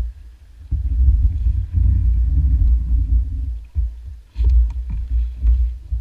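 Low rumbling and buffeting from wind on the microphone in a small boat on open water. It runs heavily for about three seconds, then comes as a few bumps and knocks in the second half while the paddle is laid across the hull and a bamboo pole is handled.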